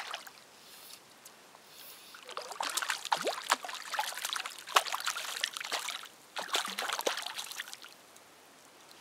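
A hooked grayling splashing and thrashing at the surface close to the bank, in irregular splashes starting about two seconds in, pausing briefly around six seconds and stopping near eight seconds.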